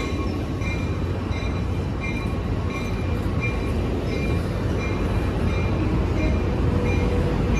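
Amtrak California bilevel passenger cars rolling past along the platform: a steady rumble of wheels on the rails. A faint high ringing tone repeats about every two-thirds of a second.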